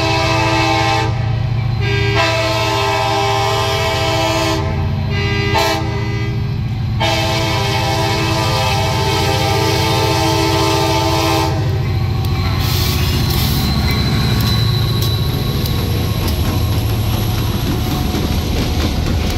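A Wheeling & Lake Erie diesel locomotive's air horn sounds the grade-crossing pattern: the end of one long blast, then another long, a short and a final long blast, which ends about eleven seconds in. The locomotive then rolls past with a low diesel rumble, and the freight cars' wheels click over the rail joints.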